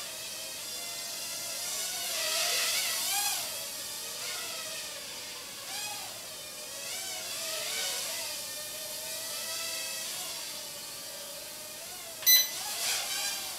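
Bayangtoys X9 micro quadcopter's motors and propellers whining in flight, the pitch wavering up and down as the throttle changes. A brief sharp knock about twelve seconds in is the loudest moment.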